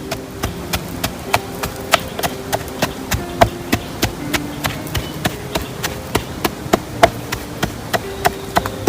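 Rhythmic knocking: sharp strikes about three times a second, keeping an even beat, over faint low held notes.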